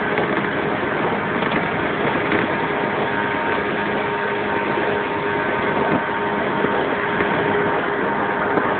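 Inside a resistance-controlled JR 115-series electric train car, running at a steady speed: constant wheel-on-rail rumble with a faint, even motor hum that does not change pitch.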